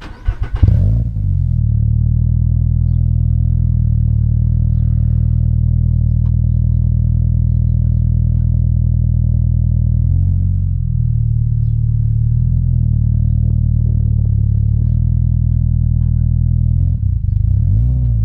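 The 2022 Subaru BRZ's flat-four engine, breathing through an Invidia N1 cat-back exhaust, cranks and catches within about a second, then idles with a steady, deep exhaust note.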